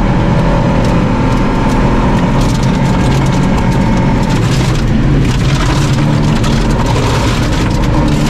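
Volvo 240 rally car's engine running hard, heard from inside the cabin, with gravel rattling and cracking against the underbody.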